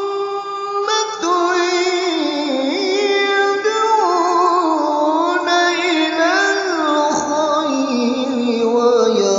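Melodic Quran recitation (tilawah) by one voice. It holds a long steady note for about the first second, then winds through ornamented runs that drift gradually lower in pitch.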